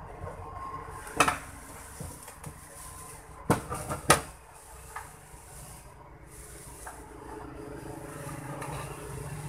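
A metal-cased electronics box and a screwdriver being handled on a wooden workbench: a sharp knock about a second in, then two or three louder clatters about three and a half to four seconds in as the box is turned round and set down, over a steady low hum.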